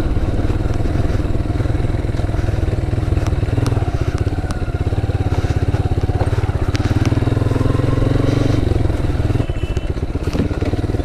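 Honda motorcycle engine running steadily under throttle over a loose dirt trail, with a few sharp clicks along the way. The engine eases off near the end.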